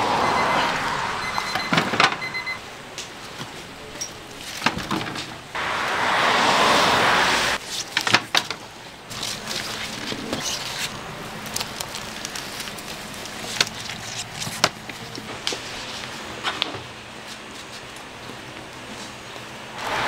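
Boiled corn cobs being scooped out of a large pot of boiling water with a wire-mesh strainer: water pours off in two loud surges, near the start and about six seconds in, with clinks and knocks of the strainer and cobs against the metal pot throughout.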